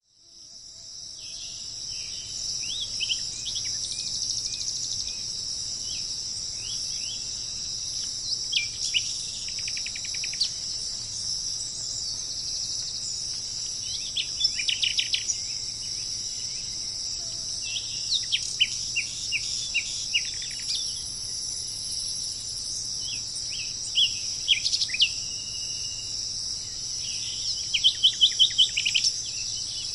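Songbirds singing short phrases of quick trills and down-slurred notes every few seconds, over a steady high-pitched background drone that fades in at the start.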